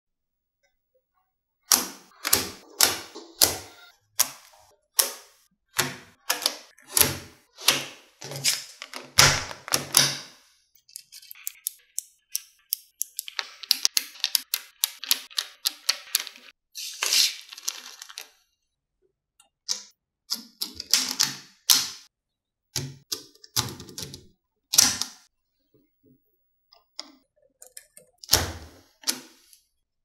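Small magnetic balls clicking and snapping together as they are pressed into place by hand: sharp single clicks a few times a second, a stretch of rapid, dense clicking and rattling midway, then scattered clicks with a heavier knock near the end as a layer is set down.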